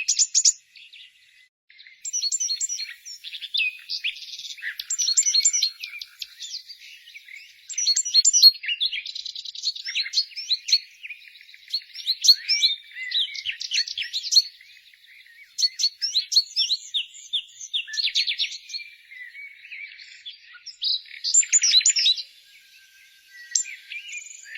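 Songbirds singing: phrases of rapid, high chirps and trills a second or two long, repeated after short pauses.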